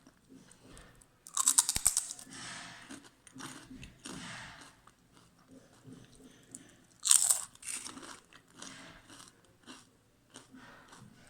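Crisp fried potatoes (papas fritas) being bitten and chewed. Two loud crunching bites come about a second and a half in and about seven seconds in, with softer, repeated chewing crunches between and after.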